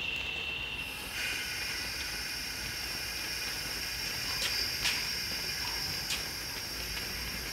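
Steady, high hiss of compressed air from a stopped container freight train's air brakes, starting about a second in, with a few light clicks over it.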